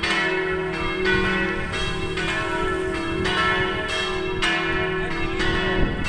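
Church bells ringing in the belfry, with a quick succession of strikes about every half second that overlap and ring on into a sustained hum.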